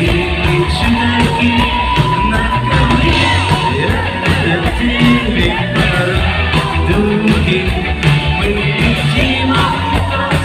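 Rock band playing live with a singer over a steady drum beat.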